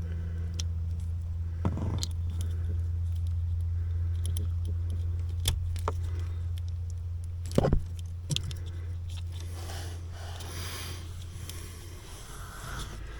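Scattered clicks and rattles from hands working under a car's dashboard, the loudest a double knock about seven and a half seconds in, over a steady low hum that fades out near the end.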